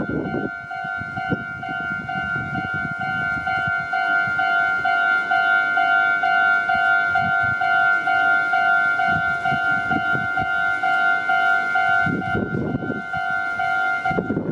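Japanese level-crossing warning bell ringing: an electronic two-tone ding repeating rapidly and evenly. Rumbling noise runs underneath, heavier near the start and again near the end.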